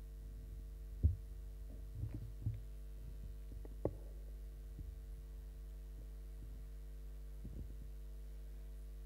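Microphone handling noise: a few dull low thumps and a sharp click as a stand-mounted microphone is taken in hand and adjusted, the loudest thump about a second in, over a steady electrical hum.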